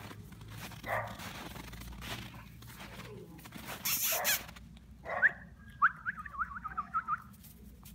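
Chocolate Labrador puppy rummaging in snow: a few brief rustling, crunching noises, the loudest about four seconds in. Then comes a quick run of about a dozen short, high, rising chirps over the last few seconds.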